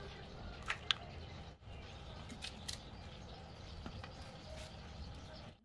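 Cake batter being poured from a cup onto a layer in a metal tin and spread with a spoon: soft scrapes and squishes with a few light clicks and taps of the spoon against the cup and tin, the sharpest just under a second in.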